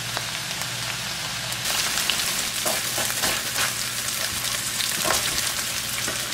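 Diced red potatoes crackling and sizzling in a hot skillet as they brown after cooking soft. From about two seconds in, a spatula scrapes through and turns them, and the sizzle gets louder with a run of crackles.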